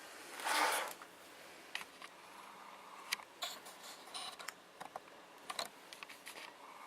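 Handling noise: a short scrape about half a second in, then scattered small clicks and taps of hard plastic being handled.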